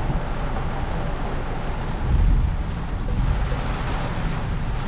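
Wind buffeting the microphone: a steady rushing noise with a low rumble that swells briefly about two seconds in.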